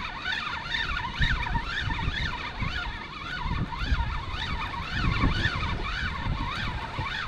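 Spinning fishing reel being cranked steadily: its gear whine rises and falls with each turn of the handle, about twice a second, and stops near the end as the fish is brought to the surface. Wind rumbles on the microphone.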